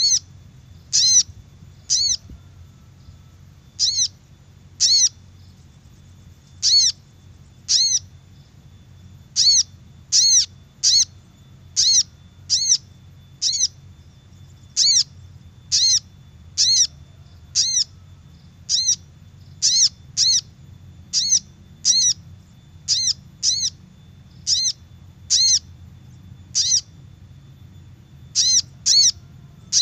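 Little spiderhunter (sogok ontong) calling: a short, sharp, high note repeated about once a second, now and then in quick pairs, as a lure call. A faint steady low hum runs underneath.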